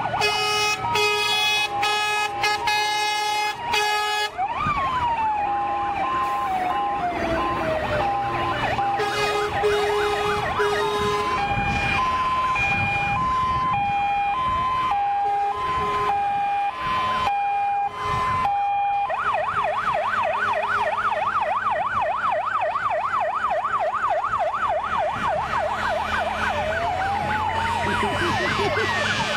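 Several fire engine sirens sounding at once from a slow-moving column of fire trucks: two-tone hi-lo horns alternating steadily, wailing sirens rising and falling, and from about two-thirds through a fast yelp over the top. A run of short, loud blasts in the first few seconds, with truck engines running underneath.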